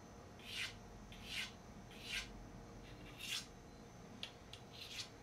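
Steel broadhead edge scraped by hand along a hand-held sharpening hone: four faint strokes about a second apart, then three lighter, quicker ones near the end. This is deburring the edge of the hard A7 tool-steel head.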